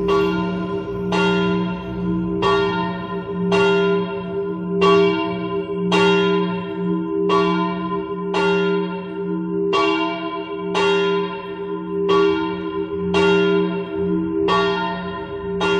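The smallest of the three Lavariano church bells, thought by the uploader to be cast by Broili around 1956, swinging in full peal (a distesa) to call to the rosary. The clapper strikes evenly about once every 1.2 seconds, and each stroke rings on over a continuous hum of the bell's lower partials.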